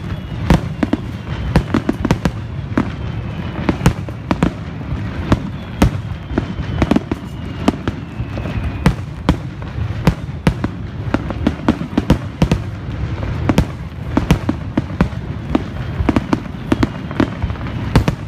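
Fireworks finale: aerial shells bursting in rapid succession, several sharp bangs a second over a continuous low rumble, with faint whistling tones now and then.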